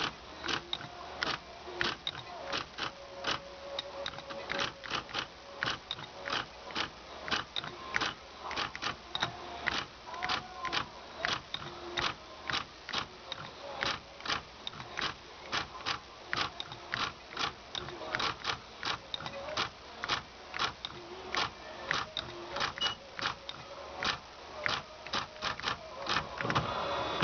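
Royal Beta 9000 electronic typewriter typing a test line: a steady run of sharp print-hammer strikes, about two to three a second, with the daisy-wheel selection motor whirring between them. The print hammer has just been aligned with the selection motor, and the typing is a check that it stays in adjustment.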